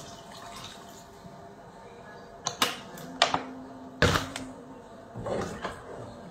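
A few sharp knocks and clatters, as of hard household objects being handled and set down, over faint background music.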